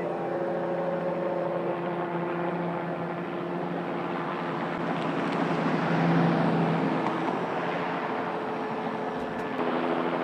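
Light helicopter running steadily, turbine and rotor sound with steady tones over a rushing noise, growing louder about six seconds in and then easing back.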